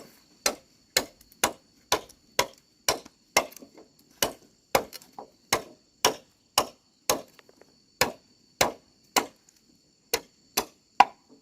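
Rhythmic chopping: a long run of sharp, evenly spaced blows, about two a second.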